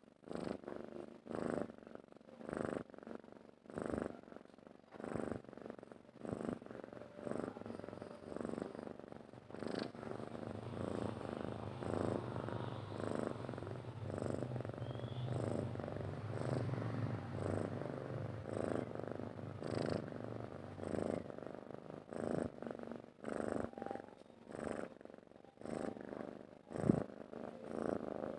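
Domestic cat purring, swelling and fading with each breath about once a second, running more evenly through the middle.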